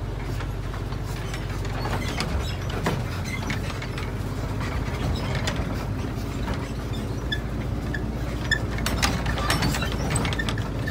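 Vehicle travelling over a rough, broken road: a steady engine and road rumble under a clatter of rattles and knocks, which grow busier near the end.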